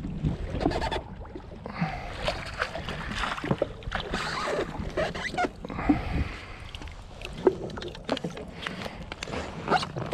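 Water splashing and sloshing as a snapper is brought to the landing net and scooped up beside a jet ski, with scattered knocks and clicks of handling.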